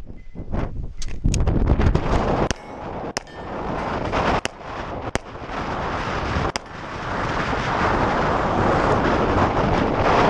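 Handgun shots from other shooters on the range, about seven at irregular spacing, over heavy wind buffeting the microphone. The wind grows louder in the second half.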